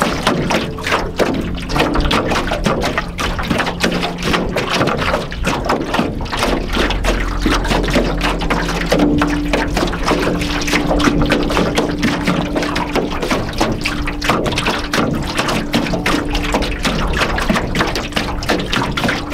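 Small lake waves lapping and splashing against the hull of an aluminium canoe, an irregular run of wet slaps. Steady ambient music tones sound underneath.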